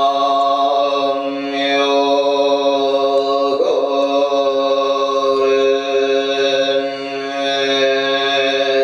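A low voice chanting in a mantra-like drone, holding one steady pitch for long stretches, with a new syllable starting about three and a half seconds in.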